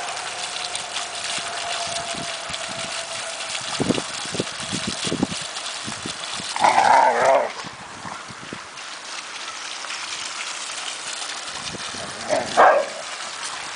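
A dog barks twice while the dogs play: a loud bark about seven seconds in and a shorter one near the end. A garden bowl fountain splashes steadily underneath.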